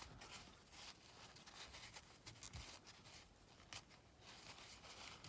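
Near silence: room tone with a few faint light clicks and rustles.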